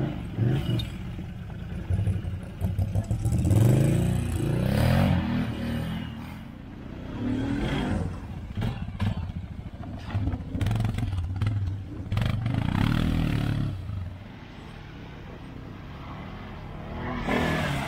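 A quad bike (ATV) engine revving in repeated surges, the pitch rising and falling as the rider works it through the mud, with a run of knocks and clatter midway. It drops to a lower level near the end, then revs up again.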